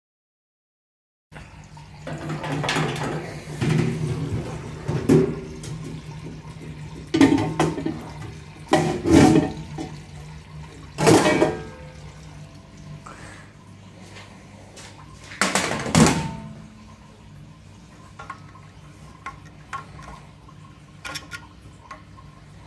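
Irregular clunks and scrapes of the metal parts of a stainless-steel chipper being handled as its knife block is taken out, over a steady low hum. Near the end only small light ticks are left.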